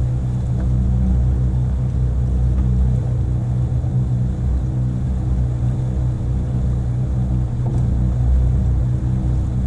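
Motorboat engine running steadily under way: a low, even hum with no change in pitch.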